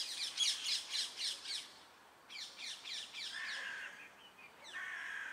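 Birds squawking and chattering in fast runs of short, harsh, high-pitched calls: two long bursts with a short gap between them, then shorter, lower calls near the end.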